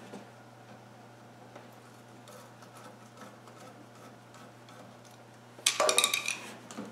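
Hands working at the engine around the turbocharger: faint ticks and small handling noises, then a burst of metal clinking and clattering near the end, as metal parts and fittings are handled.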